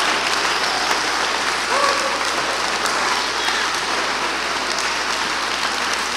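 Church congregation applauding steadily in praise, with a few voices calling out over the clapping.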